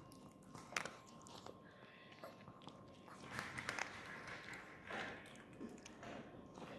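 Chihuahua eating dry kibble: faint, irregular crunches and clicks as it bites and chews the pieces.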